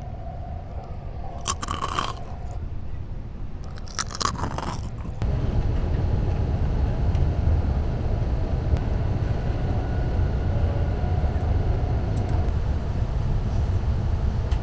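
Saphir Odoriko electric train running, heard inside the carriage: a steady low rumble with two short harsh noises in the first five seconds, growing louder from about five seconds in.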